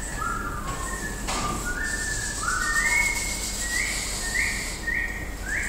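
A person whistling a tune: a string of about a dozen short notes that step between different pitches.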